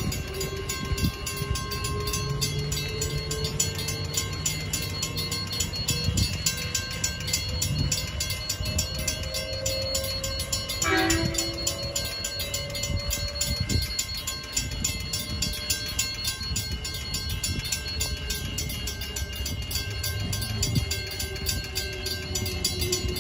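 Transperth A-series electric train's traction motors whining, the pitch rising as it pulls away, with a brief sharp tone about halfway through. Near the end the whine of a second train falls in pitch as it slows coming in.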